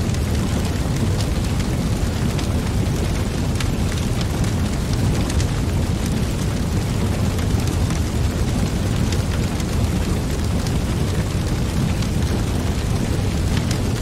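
Wood fire burning in a fire pit: a steady low rush of flames with scattered sharp crackles.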